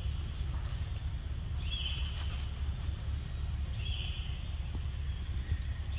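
Forest ambience: a short, high call of about half a second, repeated about every two seconds, over a steady low rumble.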